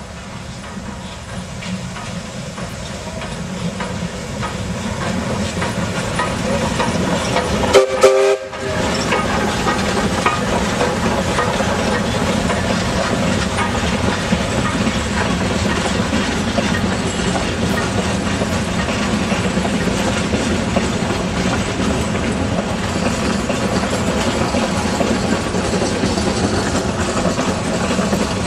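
Steam locomotive and its passenger train running on the rails, growing louder over the first several seconds. About eight seconds in there is a short whistle blast, then the sound breaks off for a moment and carries on as the steady running noise of the train.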